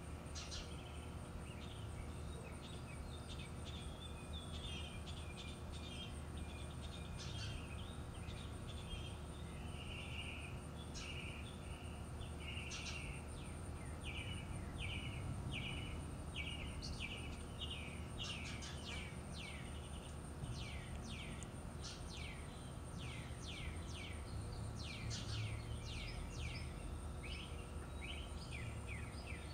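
Outdoor ambience of birds chirping: many short, quick calls, busier in the second half, over a steady low background hum.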